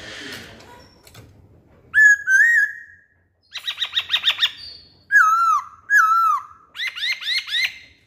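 Black-throated laughingthrush (poksay Hongkong) singing loud, clear whistled phrases: a pair of rising whistles, a rapid run of sharp notes, two dipping whistles, then another quick run.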